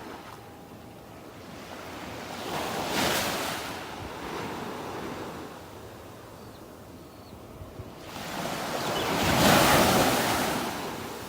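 Ocean waves breaking on a beach: a smaller wave surges about two and a half seconds in and fades, then a louder one builds near the end and washes out, each a swell of rushing noise.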